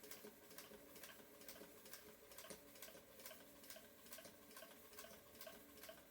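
A Singer Featherweight Centennial sewing machine stitching, very quiet: just a faint, even ticking of about three stitches a second.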